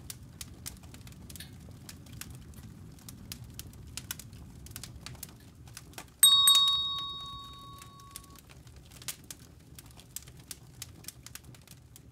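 Wood fire crackling inside a wood-burning tent stove, a steady run of sharp pops and snaps over a low rumble. About six seconds in, a single bell-like ding rings out and fades over about two seconds.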